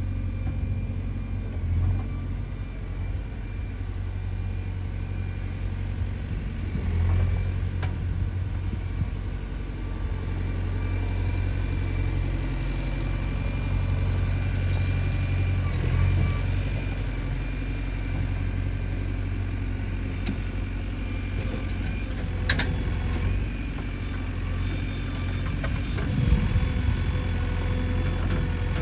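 JCB 3DX backhoe loader's diesel engine running steadily, swelling a little now and then, with a few sharp knocks in the last third.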